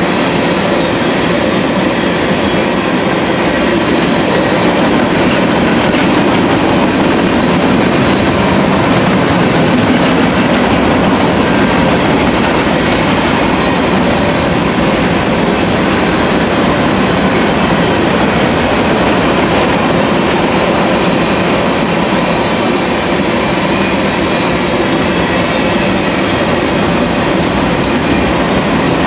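Freight cars of a Union Pacific mixed freight train (tank cars, covered hoppers and boxcars) rolling past: steel wheels on the rails making a loud, steady rattle and rumble that does not let up.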